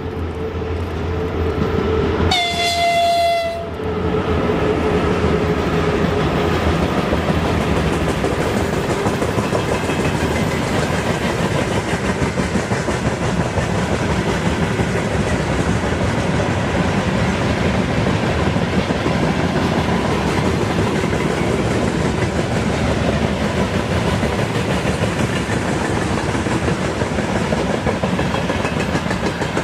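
VL10U electric locomotive sounding one short horn blast about two seconds in as it passes, its low hum fading away. A long freight train's wagons follow, rolling by with a steady rumble and wheel clatter on the rails.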